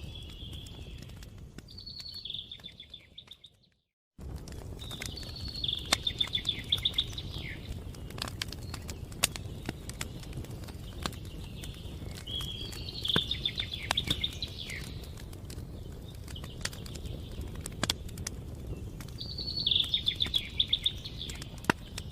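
Campfire crackling and popping over a low steady rumble, with a songbird singing short trilled phrases in the background four times. The sound fades out and cuts back in about four seconds in.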